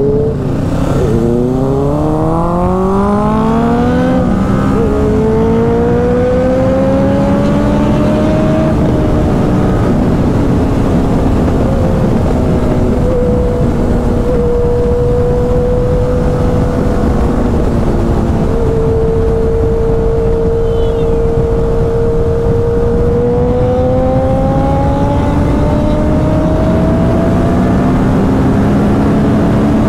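Kawasaki Ninja 650's parallel-twin engine accelerating hard through the gears. Its pitch climbs and drops back at two upshifts in the first five seconds, then holds nearly steady at speed and climbs again near the end.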